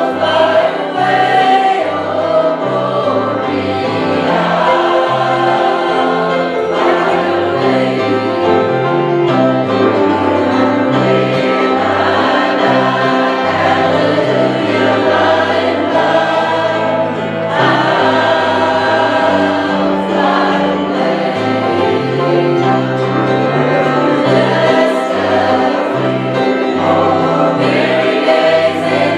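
Choir singing gospel music with instrumental accompaniment over a stepping bass line.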